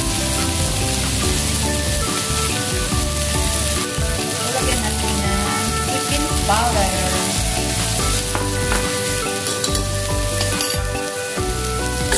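Chicken drumettes sizzling steadily in hot oil in a wok with sautéed garlic and onion. Near the end come a few short scrapes and taps as the pieces are stirred with a wooden spatula.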